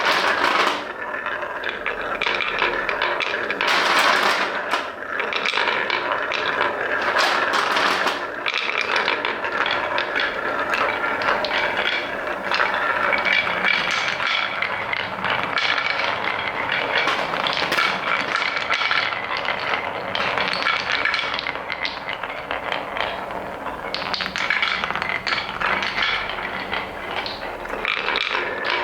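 Wooden balls rolling and clattering down a wooden marble run: a steady stream of many small knocks, rattles and rolling scrapes.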